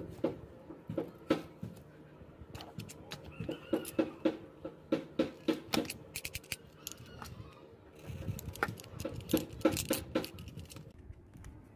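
Irregular sharp clicks and rattles of a plastic-handled pair of scissors with a retractable cutter and its cardboard packaging being handled and opened, busiest near the end.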